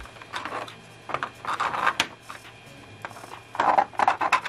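3D-printed plastic organiser boxes scraping and clacking as they are slid into place against one another in a toolbox tray: a few short rubbing bursts, with a sharp click about two seconds in.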